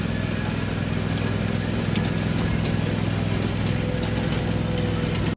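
An engine running steadily at an even speed, with a low hum and a few faint ticks; the sound cuts off suddenly at the end.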